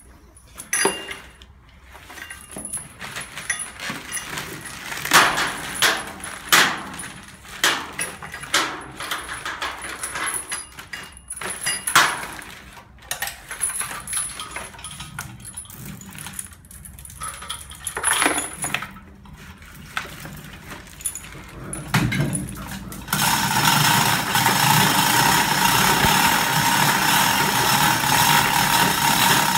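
Steel lifting chain clinking and rattling as it is wrapped and hooked around a plastic-bagged car engine, in many sharp irregular clinks. About three quarters of the way in, a steady machine noise with a constant tone starts suddenly and runs on.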